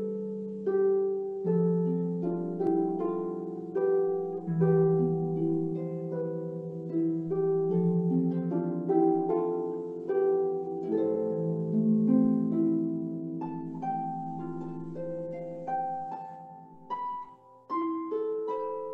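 A harp played solo: a slow melody of plucked notes over low notes that ring on, with a brief break near the end. It is heard over a Zoom video call.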